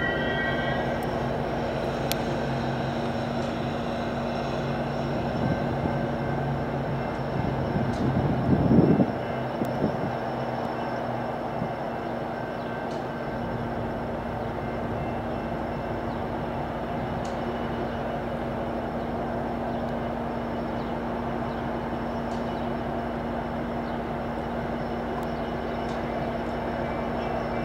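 Metra F59PHI diesel locomotive and bilevel commuter cars pulling into the station and stopping, the engine running with a steady hum. High-pitched wheel squeal dies away at the very start, and there is a short loud burst of noise about nine seconds in.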